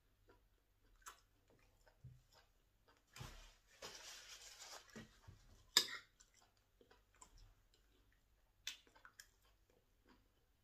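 Quiet mukbang eating sounds: faint chewing and mouth clicks, a few seconds of scraping and rustling a few seconds in, and one sharp clink of a fork against the rice plate about halfway through.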